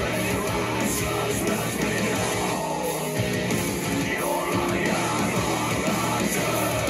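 Rock music playing at a steady level, with a full band sound.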